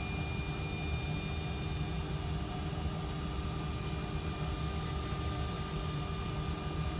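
SIP 01332 table saw running steadily, an even hum with a fixed high whine that does not change.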